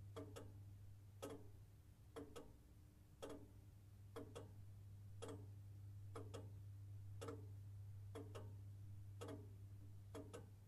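Faint clock ticking, about one tick a second with every other tick doubled, over a low steady hum.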